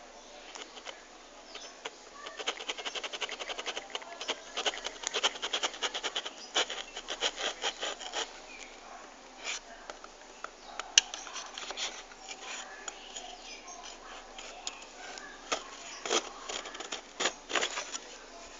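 Processor retail packaging being handled and opened: a dense run of rapid small clicks and crackles in the first half, then scattered single taps and ticks, a few of them louder.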